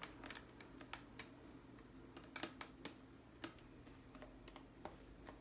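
Faint, irregular clicks and taps from hands working on a laptop, a dozen or so sharp ticks spread unevenly through the stretch.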